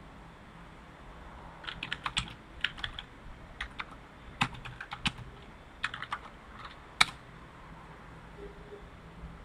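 Typing on a computer keyboard: irregular runs of key clicks starting about a second and a half in, with one louder single keystroke near the end.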